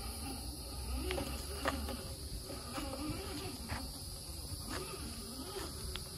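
Axial SCX10 II rock crawler's Holmes Hobbies Crawlmaster brushed motor whining, its pitch rising and falling with the throttle as the truck crawls over rocks. There are a few sharp clicks, and a steady insect drone behind.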